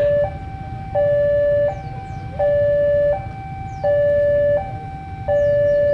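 Railway level-crossing warning alarm sounding for an approaching train: an electronic two-tone signal alternating evenly between a louder low note and a higher note, each held about three-quarters of a second.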